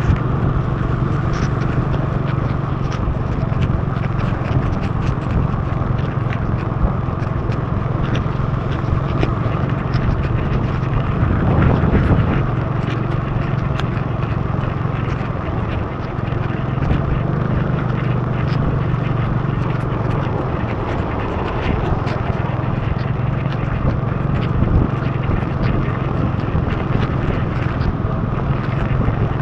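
Motorbike engine running steadily at cruising speed under the hiss of heavy rain and tyres on a wet road, with many raindrops ticking against the camera. The noise swells briefly about twelve seconds in.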